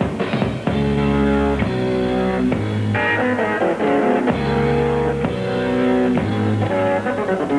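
Instrumental rock passage: held keyboard chords, each sustained about a second before the next, over bass guitar and drums.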